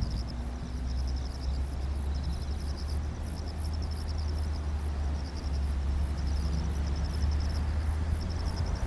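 Insects trilling in high-pitched pulsed phrases about a second long, repeating with short gaps, over a steady low rumble.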